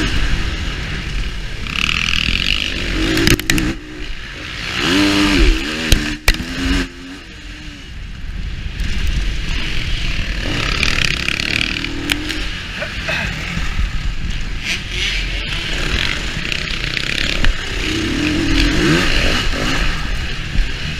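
2019 KTM 350EXC-F dirt bike's single-cylinder four-stroke engine being ridden hard, rising and falling in revs. It revs up sharply about five seconds in, then drops quieter for a couple of seconds before pulling again.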